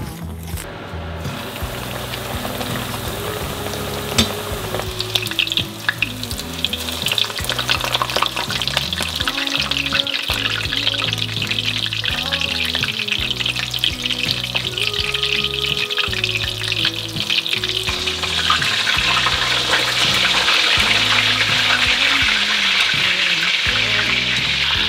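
Breaded pork cutlets deep-frying in hot oil in a pan, a steady sizzling crackle that builds a few seconds in and grows louder near the end, over soft background music.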